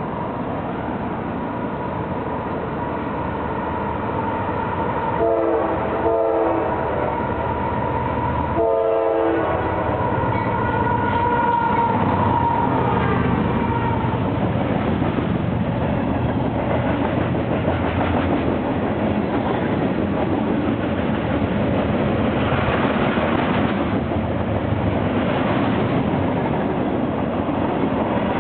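Diesel freight train passing, led by GE AC44CW and ES44AC locomotives, sounding its multi-chime air horn in short blasts about five to ten seconds in, over the steady rumble of the engines and the rolling of the freight cars.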